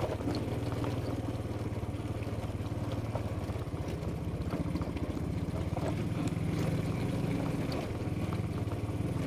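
Motorcycle engine running steadily at low speed on a rough stone track, a little louder around the middle, with scattered knocks and rattles from the bumpy surface.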